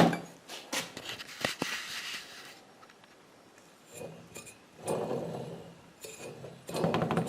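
Loose metal engine parts clinking and knocking against each other and a hard surface as they are handled: scattered separate clinks, a short lull, then more clatter and a dense run of rapid clicks near the end.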